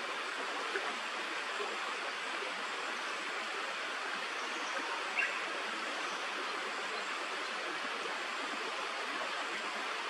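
Steady rush of a running stream, an even hiss of flowing water, with one short sharp sound about five seconds in.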